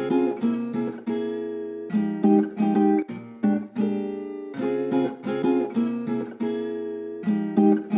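Background music: acoustic guitar playing plucked and strummed chords, each struck and let ring, in a repeating pattern.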